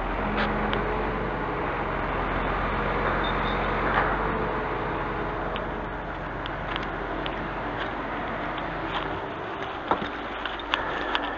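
Diesel engine of a Scania truck running steadily to drive its Palfinger loader crane's hydraulics during a lift, its hum strongest in the first few seconds and easing after. A few sharp clicks and knocks near the end.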